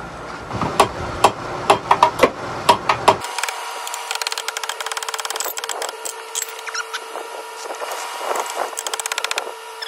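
Hammer blows on the car's metal underside: about eight sharp knocks in the first three seconds. After that, quick light clicking and rattling of tools working on metal parts.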